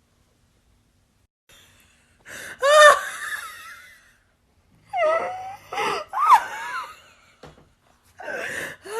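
A woman's short, high-pitched wordless cries and gasps that slide up and down in pitch, in three bursts after a silent start: one a couple of seconds in, a cluster in the middle, and another near the end.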